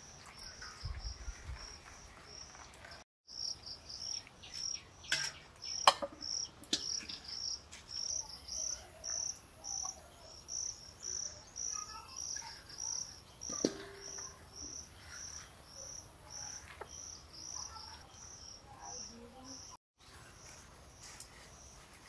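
An insect chirping in a steady rhythm, about two short high chirps a second, with a few sharp knocks and rustles of handling.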